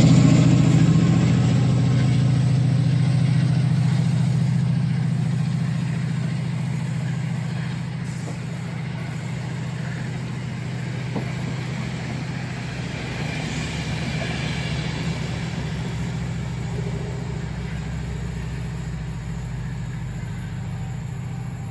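Class 68 diesel-electric locomotive's Caterpillar V16 engine pulling away under power, a steady low drone that fades as the train draws away, with the rumble of the passing coaches on the rails.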